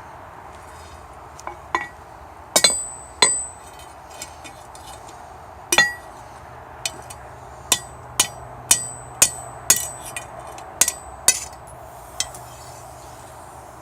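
Hammer striking metal on an anvil: about fifteen sharp, irregular blows with a bright metallic ring, over a steady hiss.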